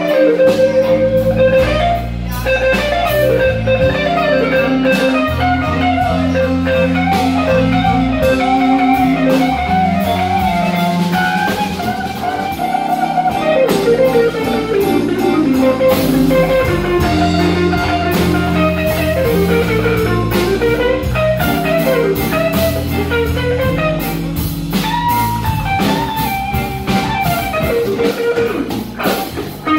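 Live blues band playing: a lead guitar line with bent, sliding notes over bass and drums.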